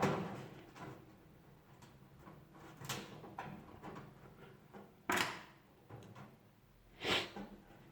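A few short knocks and clicks from handling an electric oven's parts and screws during reassembly, spaced about two seconds apart, the loudest about five seconds in.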